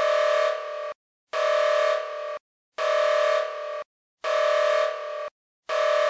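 Emergency-alert attention signal: an electronic beep of several steady pitches, repeating about every one and a half seconds. Each beep lasts about a second and drops in level halfway through.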